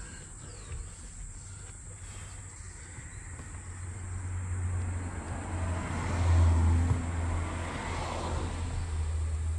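A motor vehicle going past: a low rumble and road hiss swell to a peak about six seconds in, then fade.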